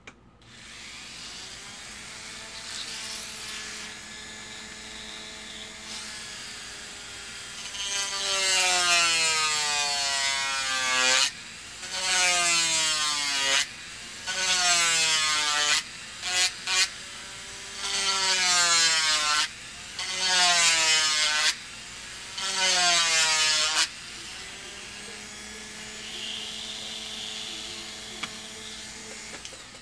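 Dremel rotary tool running with a steady whine, then about seven louder passes in the middle, the pitch dropping each time as the bit is pressed into the plastic model part, before it runs freely again and stops near the end.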